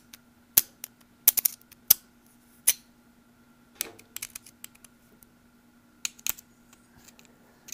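Irregular sharp metallic clicks of steel rollers in a roller bearing around a tractor gear shaft being prodded and rattled in their race, checking which rollers are loose and which are tight. The owner suspects a slightly bent shaft. A faint steady hum runs underneath.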